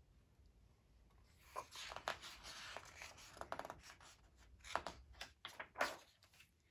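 Paper pages of a picture book rustling and rubbing as they are handled and turned: a run of soft scrapes and rustles that starts about a second in and dies away near the end.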